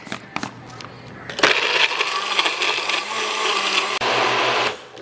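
Personal single-serve blender running, blending milk and frozen fruit into a smoothie; it starts about a second and a half in and cuts off just before the end. Before it, a few clicks as the cup is seated on the motor base.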